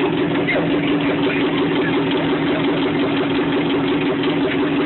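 Off-road vehicle's engine idling steadily close by.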